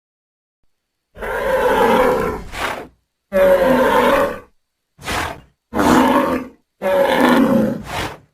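Made-up Centrosaurus roars: a sound-effect dinosaur lets out five rough, pitched roars in a row, the first starting about a second in and the third much shorter than the others.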